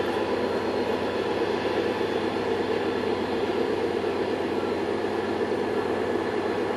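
Two BNSF diesel pusher locomotives at the rear of a long manifest freight train, their engines running steadily as they push the train up the grade.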